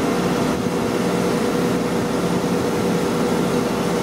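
Steady hum of running machinery: an unbroken drone with a constant pitch and even level.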